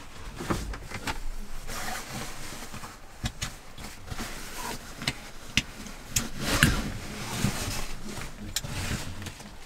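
Nylon fabric of a down jacket and sleeping bag rustling as they are handled, with scattered sharp clicks and knocks, the loudest a little past the middle.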